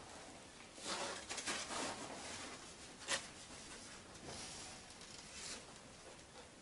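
Paper sack of plaster and plastic jug being handled: irregular rustling and scraping, with one sharp knock about three seconds in.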